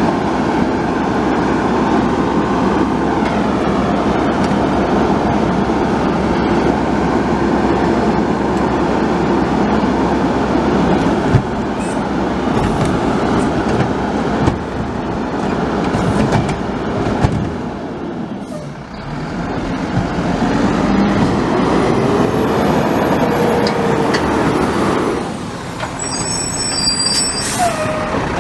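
Garbage truck running steadily, with a few knocks, a brief dip in level about two-thirds of the way through, and a short high-pitched squeal near the end.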